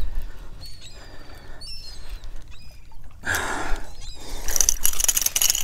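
Hooked speckled trout splashing and thrashing at the water's surface beside the boat as they are reeled in, louder from about four and a half seconds in. A few short, high chirps are heard in the first two seconds.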